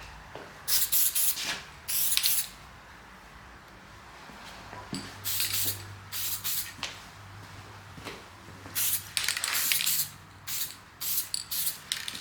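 Plastic primer sprayed onto a door handle in short hissing bursts, about eight of them, with brief pauses in between.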